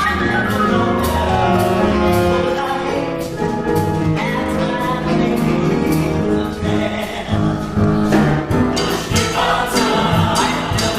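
Music: several voices singing sustained notes over a band, with a steady drum and cymbal beat.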